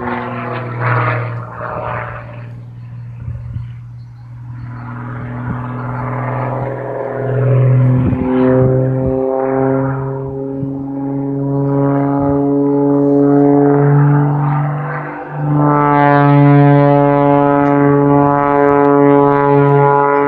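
Single-engine aerobatic propeller plane flying a display overhead: a continuous engine-and-propeller drone whose pitch shifts with the manoeuvres. It fades briefly a few seconds in, climbs slowly in pitch, and grows loud again about sixteen seconds in.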